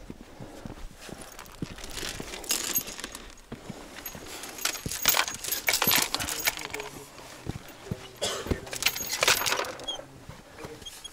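Metallic clinking and scraping in three bursts, about two, five and nine seconds in.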